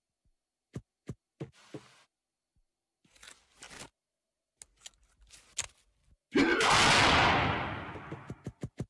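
A single rifle shot about six seconds in, with a long echoing tail that dies away over about two seconds. Before it come a few light clicks and knocks.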